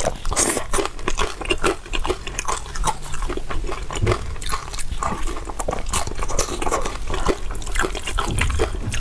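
Close-miked wet chewing and mouth smacking while eating chicken curry with rice, a dense run of small clicks and squelches.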